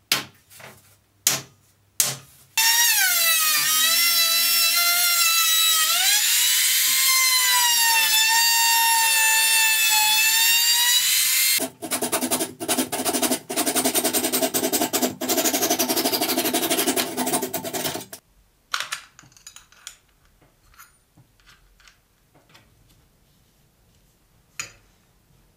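A few sharp hammer taps, then an electric drill runs for about fifteen seconds. Its whine dips and rises in pitch as the speed changes, and turns rough and rattling for its last six seconds or so before stopping. A few faint clicks follow.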